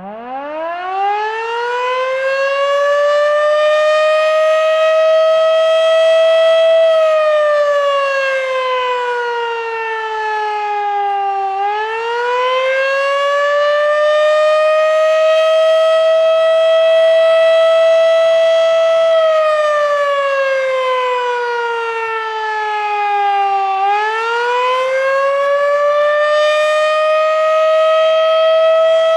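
Federal Sign & Signal Model 3 outdoor warning siren sounding the attack signal: it winds up from a standstill over about six seconds, then its loud wail falls and rises again in slow cycles, dropping twice.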